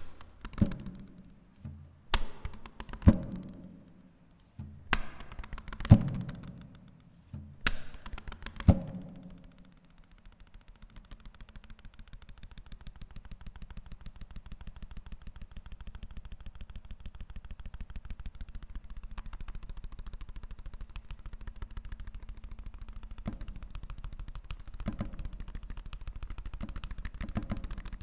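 Paper percussion: a series of sharp hits on paper, each ringing out briefly, followed about ten seconds in by a rapid, even patter of taps that slowly grows louder, with a few stronger hits near the end.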